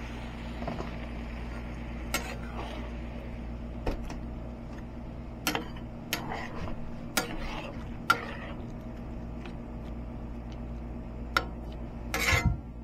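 A utensil stirring vegetables and chicken stock in a cast iron skillet, with about half a dozen sharp clinks of the utensil against the pan and a quick cluster of scrapes near the end, over a steady low hum.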